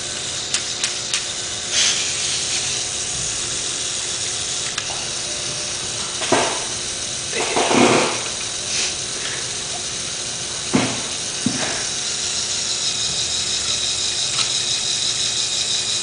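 LEGO Technic 9397 logging truck's electric motor whirring steadily through its plastic gear train, with fine gear clicks. Louder plastic clatters come about six, eight and eleven seconds in.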